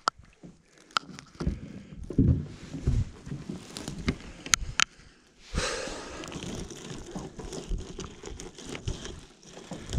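Wet monofilament gill net being handled and pulled into a boat: irregular rustling and scraping of the mesh against gloves and the boat floor, with a few sharp clicks and knocks in the first half. A steady hiss sets in about halfway.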